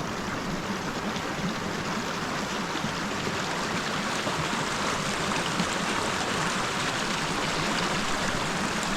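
Mountain stream water flowing steadily over rocks, with one light click a little past halfway.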